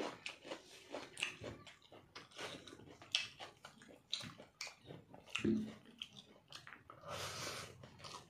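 Close-up eating sounds: chewing and lip smacking, with fingers mixing rice and chicken curry on a plate, in many irregular short clicks and smacks. A short rush of noise comes about seven seconds in.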